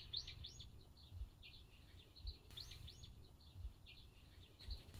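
Faint bird chirps: short, high chirps in small clusters recurring every second or so, over a low, faint background rumble.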